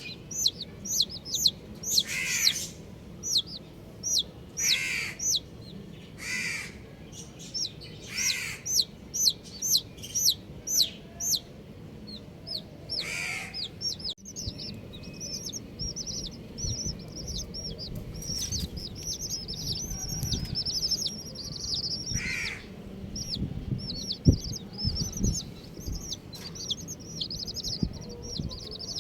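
Baby chicks peeping: a steady run of short, high, falling cheeps, with several louder, fuller calls standing out now and then, and many chicks cheeping over one another in the second half.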